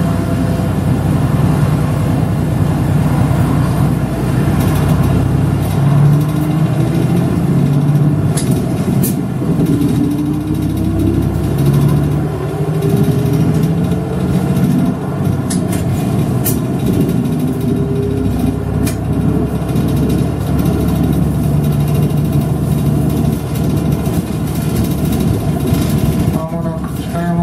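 City bus engine and road noise heard from inside the cabin while the bus drives. A whine rises in pitch a few times in the middle, and there are a few sharp clicks.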